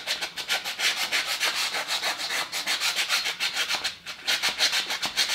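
220-grit sandpaper wrapped on a flat wooden block, rubbed back and forth in quick strokes against the cast-iron fuel pump mounting boss of an engine block. It is dressing the mating surface clean and flat for a new fuel pump gasket. There is a short pause about four seconds in, then the strokes go on.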